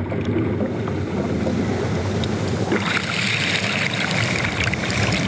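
Steady rush of sea water and wind around a submarine at the surface. About three seconds in, a brighter hiss of spray comes in.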